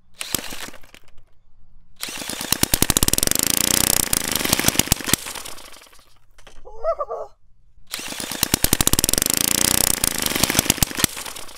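Homemade 3D-printed single-cylinder four-stroke gas engine firing: a fast, loud string of sharp pops as it runs for a few seconds on starter fluid and carburetted fuel, then dies away. It is heard twice.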